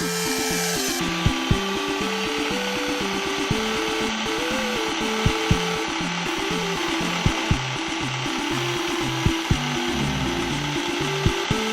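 Electric hair clipper fitted with a freshly sharpened Andis blade, running and cutting through test material with a steady rubbing noise. Background music plays with a stepped melody and a double beat about every two seconds.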